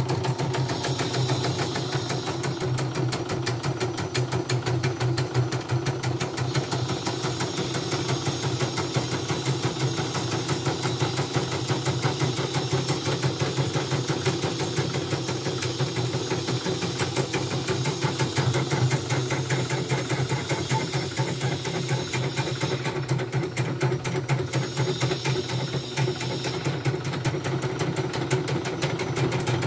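CNY portable embroidery machine stitching steadily: fast, even needle strokes over a constant motor hum. It is test-running after a repair, with no thread breaks.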